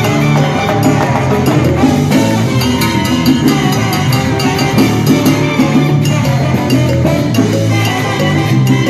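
Live salsa band playing a steady, loud groove of bass, percussion and pitched instruments.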